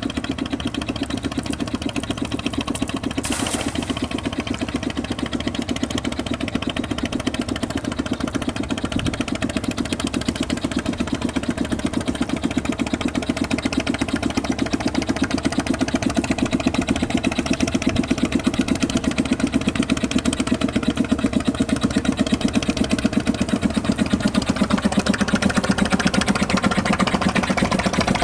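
A small engine running steadily with a fast, even chugging pulse that grows a little louder in the second half. There is a brief sharp noise about three seconds in.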